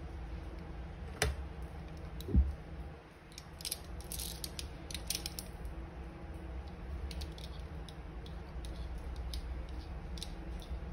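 Steel ruler being handled and laid down on leather over a cutting mat: a sharp clack about a second in, then a short dull thump, the loudest sound. Scattered light clicks and taps follow over a steady low hum.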